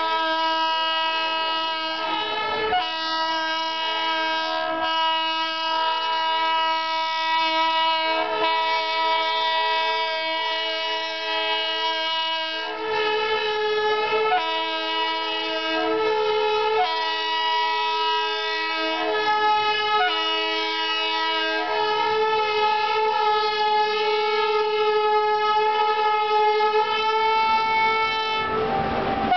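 WCAM3 DC electric locomotive's blowers running as the locomotive approaches: a steady whine of several tones together that shifts in pitch a few times, with a few low knocks along the way.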